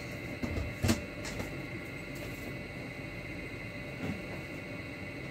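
Steady room hiss and hum with no one nearby, broken by a sharp knock about a second in and a fainter one near four seconds.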